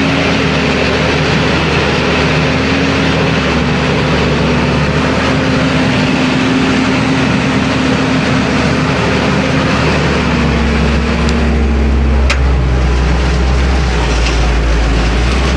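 New Holland TM155 tractor engine running steadily under load while pulling a plough through mud. About two-thirds of the way through, its note dips slightly and a deep rumble grows stronger.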